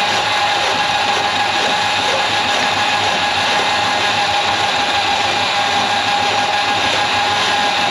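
Electric hand-held drum drain auger running steadily, its motor giving a constant whine as it spins the snake cable into a kitchen sink drain clogged with grease.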